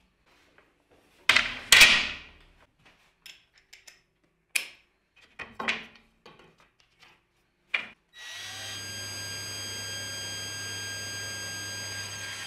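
Long wooden strips knocking and clattering on a metal saw table, loudest twice near the start, with a few lighter knocks after. About eight seconds in, a shop machine's motor switches on and runs with a steady hum and a constant whine.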